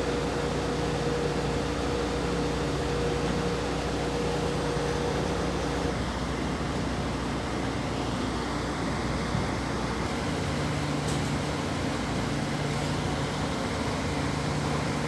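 A steady mechanical drone like an engine or machine running, a constant hum with a higher tone that drops out about six seconds in.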